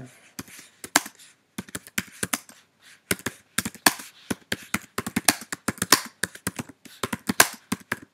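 Typing on a computer keyboard: an irregular run of sharp key clicks, several a second, broken by brief pauses.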